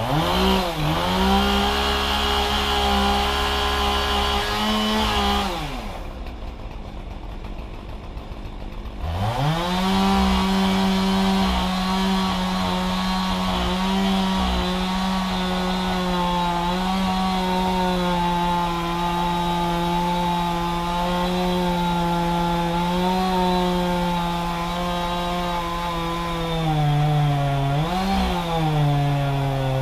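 Two-stroke chainsaw running at full throttle. About five seconds in it drops to idle. Some three seconds later it is revved back up and held high and steady, with a few quick throttle dips and blips near the end.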